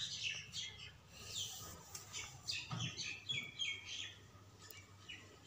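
Small birds chirping: many short, high, quickly repeated chirps that thin out after about four seconds.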